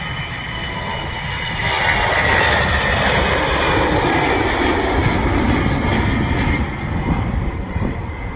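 Aircraft engines passing close by, building up to full loudness about two seconds in and staying loud, with a high whine that drops slightly in pitch over a deep rumble.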